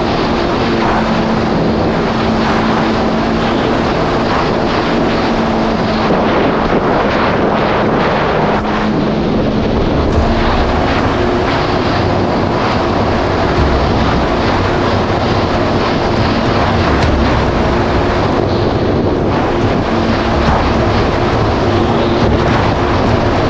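Yamaha GP1800R SVHO jet ski's supercharged 1.8-litre four-stroke engine running steadily at speed, heard from the rider's position through the rush of wind and water. The engine note shifts up partway through.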